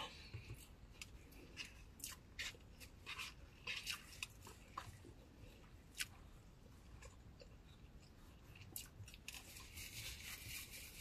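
A person eating takeout lo mein and fried rice: faint, irregular chewing with small clicks and crackles.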